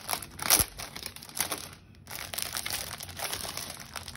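Clear plastic packaging crinkling and crackling as it is handled and pulled off a planner cover, loudest about half a second in, with a brief pause near the middle.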